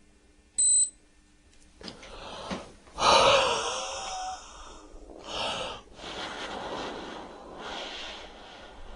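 A short, high electronic beep from a battery-powered alcohol breath tester, then a person blowing hard into it in several long, breathy puffs, the loudest about three seconds in.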